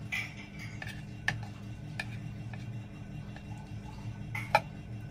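Knife tip tapping and scraping against a plate while separating sticky, syrup-coated kinnow peel strips: a few sharp ticks, the loudest near the end, over a steady low hum.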